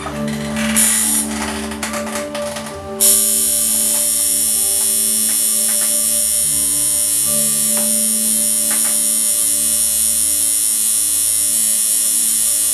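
Electric tattoo machine buzzing as it needles the skin. It is quieter and uneven for the first few seconds, then comes back sharply about three seconds in and runs steadily.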